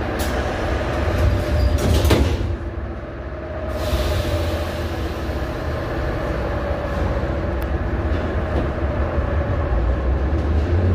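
Sliding doors of an Ezh3 metro car closing with a single bang about two seconds in, over the car's steady low running hum at the platform.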